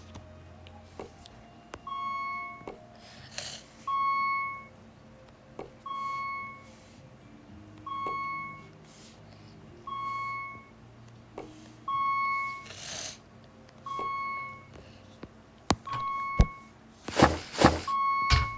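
An electronic beeper sounding a single steady high beep about every two seconds, nine beeps in all, each about half a second long. Scattered clicks and knocks sound between the beeps, with a louder clatter near the end.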